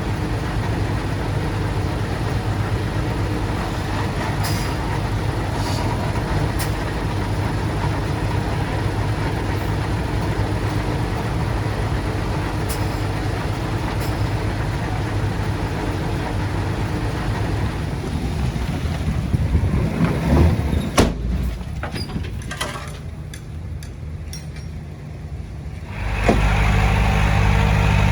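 Diesel engine of heavy earthmoving machinery running steadily under work, with a few sharp knocks about twenty seconds in. The sound drops for a few seconds, then a louder engine drone starts abruptly near the end.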